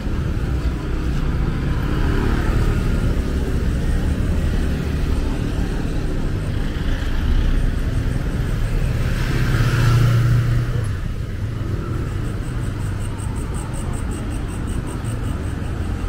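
Busy street traffic running steadily past, with one vehicle passing close and loud about ten seconds in.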